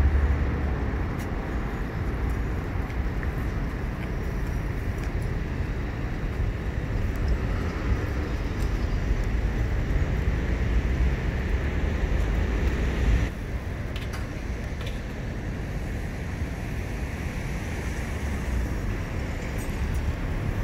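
CAF Urbos 100 tram running, a steady low rumble with faint clicks, the noise dropping a little about thirteen seconds in.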